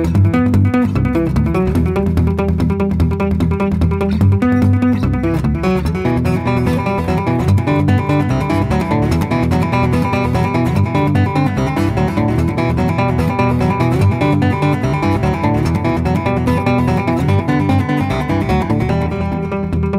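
Solo guitar music: a fast run of densely picked notes over steady low bass notes.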